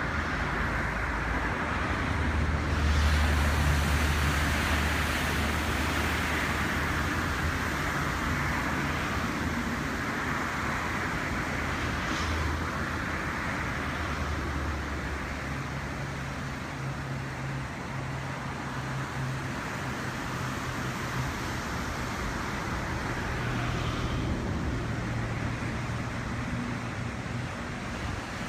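Waves washing on a beach, the noise swelling and easing every few seconds, over a steady low engine-like hum.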